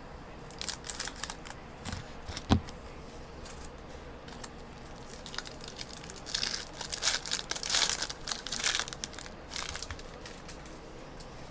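Trading-card packaging being opened and handled: crinkling and tearing, with a sharp tap about two and a half seconds in and a denser stretch of crinkling a little past halfway.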